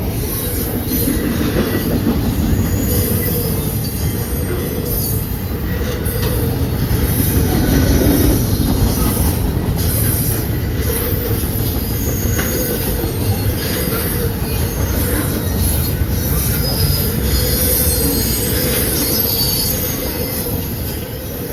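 CSX intermodal freight train rolling past: a steady rumble of wheels on rail, with scattered clicks and a faint high squeal from the wheels.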